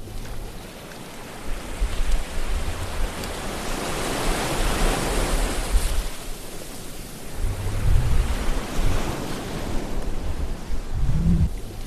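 Sea waves breaking and washing in a continuous rush that swells and falls back, building to its fullest about four seconds in and surging again twice with deep rumbles in the second half.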